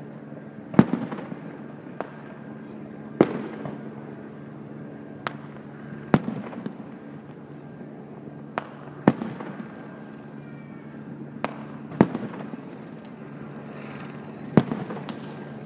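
Aerial firework shells bursting: a loud bang about every three seconds, with smaller pops between, each trailing off in a short echo.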